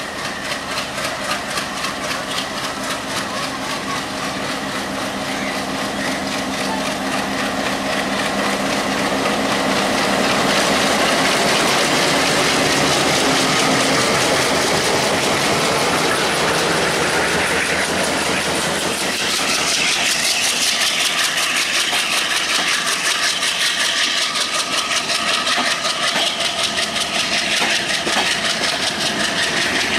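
Bangladesh Railway diesel-electric locomotive's engine running, growing louder as it pulls away past the camera. About two-thirds of the way through, the passenger coaches roll by, their wheels clattering on the rails.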